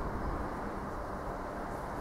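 Steady low rumble of a train approaching from far down the line, heard as an even outdoor noise with no distinct knocks or horn.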